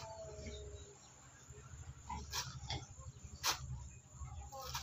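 A few short, sharp scrapes of a steel blade worked against a sharpening stone, the loudest about two and a half and three and a half seconds in, over a low steady rumble.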